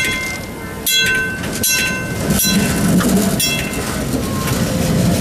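PCC streetcar moving off along the street track: a run of sharp ringing metallic clangs about once a second, with the low rumble of the car rolling on the rails building after about two and a half seconds.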